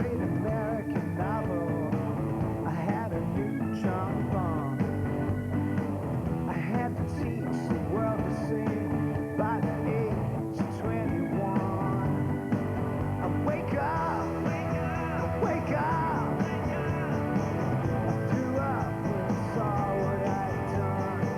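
Rock music with singing, playing continuously.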